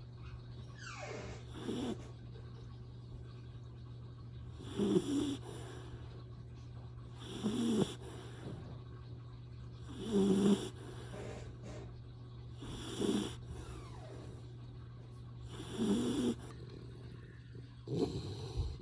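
Black Labrador retriever puppy snoring in its sleep: seven snores, one about every two and a half to three seconds, over a steady low hum.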